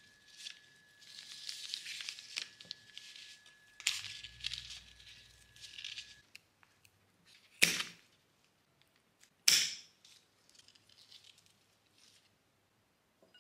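Paper being rustled and torn in short scratchy strokes over a faint steady high whine that stops about six seconds in, then two sharp clacks about two seconds apart and a few faint scratches.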